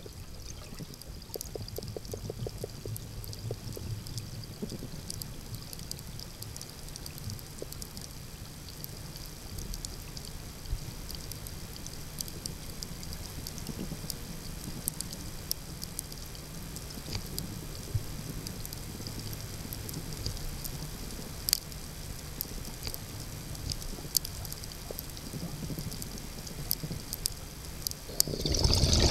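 Underwater ambience at depth: a steady low hum with many scattered sharp clicks and crackles. Near the end a loud rush of bubbling water begins, the sound of a scuba diver's exhaled bubbles from the regulator.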